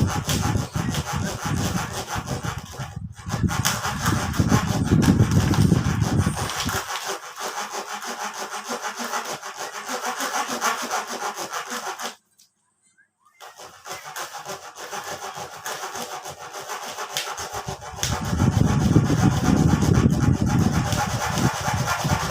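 Small hand saw sawing into a tightly compressed bale of imported used clothing, in rapid back-and-forth strokes. The sawing breaks off briefly about twelve seconds in, then carries on.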